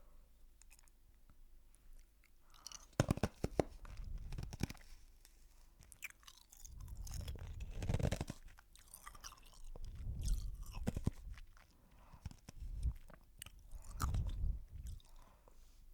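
Close crunching sounds coming in several bouts a second or two long, with pauses between.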